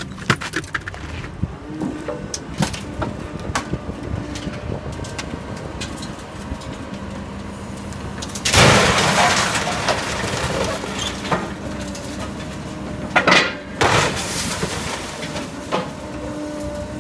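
A scrapyard grab crane's engine runs steadily while small metallic clinks sound at first. About halfway through comes a loud crash of crumpling sheet metal and breaking glass as a scrapped Daewoo hatchback is dropped onto the scrap pile, followed a few seconds later by more heavy metal bangs.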